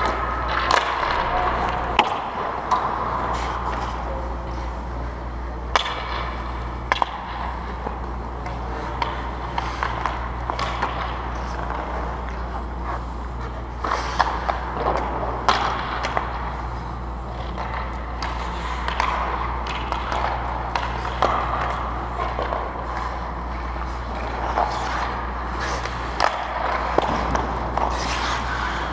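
Ice hockey skates scraping and carving on the ice, with sharp clacks of sticks and pucks striking scattered through, over a steady low hum.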